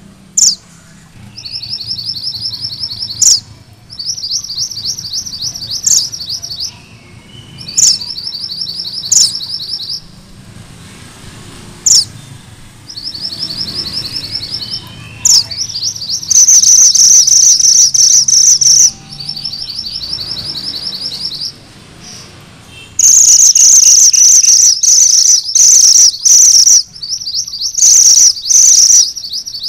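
Mantenan gunung merah singing its rolling 'ngerol' song: fast, high trills one to three seconds long, repeated with short gaps, with single sharp high notes between them. The trills get louder in the second half.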